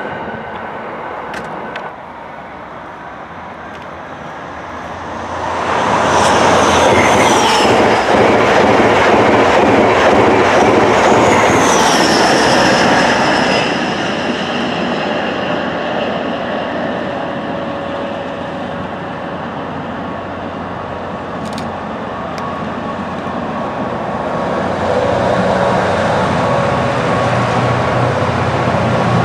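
A train passes close by with a loud rush of wheel and rail noise and high, gliding wheel squeal for several seconds about a fifth of the way in. Then a GB Railfreight Class 66 diesel-electric locomotive approaches hauling a container train, the steady note of its EMD two-stroke diesel engine growing louder near the end.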